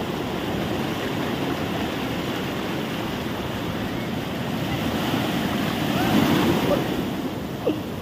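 Ocean surf washing onto a sandy beach in a steady wash, with a wave surging louder about six seconds in.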